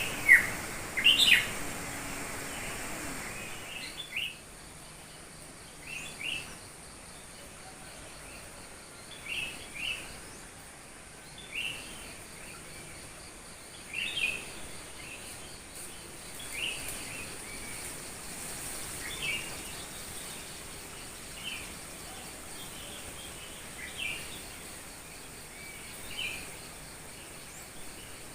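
A wild bird giving short chirps, repeated about every two to three seconds, with the loudest calls in the first second and a half, over a faint steady background hiss.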